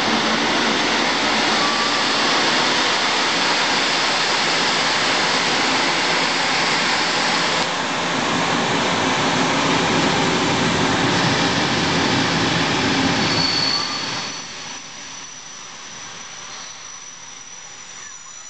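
Passenger train hauled by a MÁV V43 electric locomotive passing close by: a loud, steady rushing rumble of the train on the rails. A brief high squeal sounds just before the noise drops off sharply about three-quarters of the way through as the train moves away.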